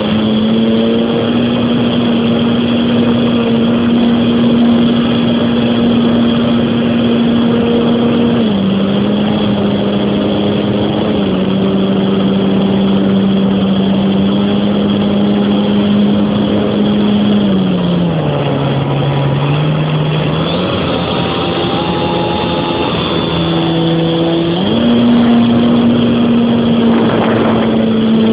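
Electric motor and propeller of a Tiger Stick radio-controlled model plane in flight, heard from right at the nose: a steady drone whose pitch steps down twice, about eight and eighteen seconds in, then jumps back up a few seconds before the end, over a constant rush of noise.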